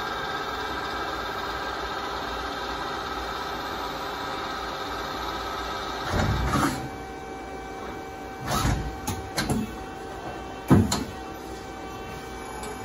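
Hyundai Kia SKT210SY CNC lathe running an automatic cycle: a steady machine hum with several tones, then, from about halfway, short clunks and whirs as its axes and tool turret move, the loudest a sharp clunk about two seconds before the end.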